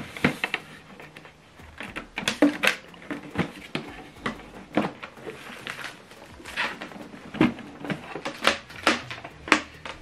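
Irregular clicks and knocks of a plastic inkjet printer and its USB cable being handled: the cable plug pushed into the printer's rear port, then the printer shifted and set down on the desk.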